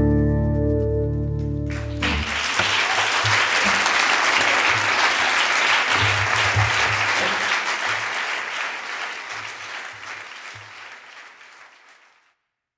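A final acoustic guitar chord rings and decays, then audience applause breaks out about two seconds in and fades away near the end.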